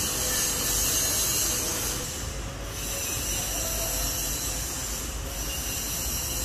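Steady rushing noise of a moving vehicle, with a faint held whine.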